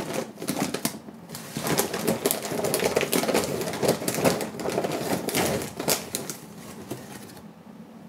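Crumpled brown paper bag rustling and crackling as it is handled and opened and dried liquorice root sticks are taken out of it. The crackling stops near the end.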